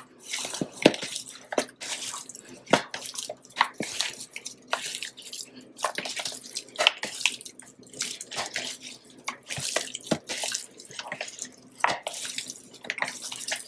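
Gloved hands mixing and turning seasoned raw pork chops in a plastic bowl, rubbing the seasoning in: irregular smacks of meat against meat and the bowl, a few a second.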